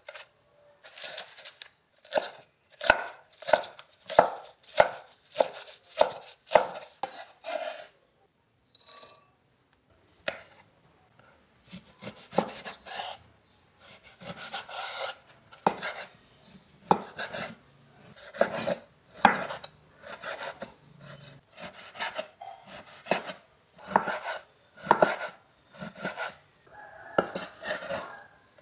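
Kitchen knife chopping on a wooden cutting board, a series of sharp knocks about one or two a second. First it chops green onions, and after a short pause it slices raw beef into strips and thin slices.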